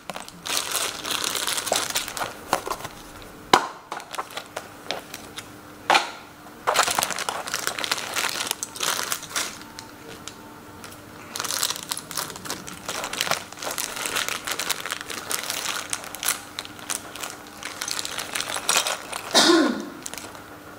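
Thin clear plastic parts bags crinkling as they are handled and pulled open, with a few sharp clicks.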